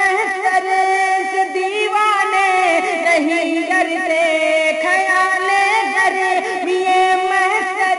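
Wordless music between verses of a naat: a steady held drone with a wavering sung melodic line over it.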